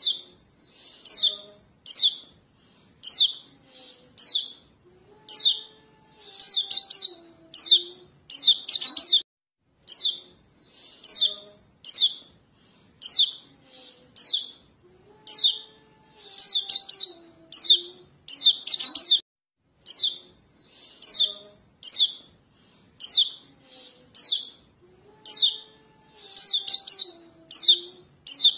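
Fledgling white-eyes (kecial kuning) giving begging calls to their parents: short bursts of high, thin chirps about once or twice a second, a sequence that repeats roughly every ten seconds. It is a lure recording used to draw adult white-eyes in for trapping.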